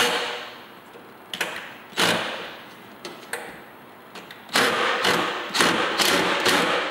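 Cordless 20-volt impact driver running a screw into a pilot hole in short trigger pulls. A few single bursts come first, then several in quick succession in the second half as the screw is driven home.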